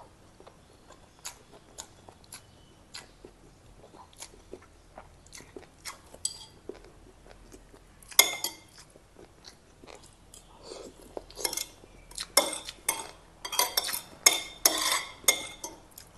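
Close-miked eating: chewing and small mouth clicks, with a spoon and fork clinking and scraping against a ceramic soup bowl. Sparse at first, then busier and louder from about eight seconds in.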